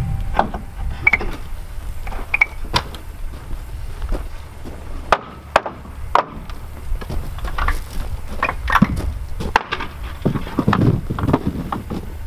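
Hammer knocking apart a wooden shipping crate: irregular sharp knocks on the wooden boards, a dozen or so spread across several seconds.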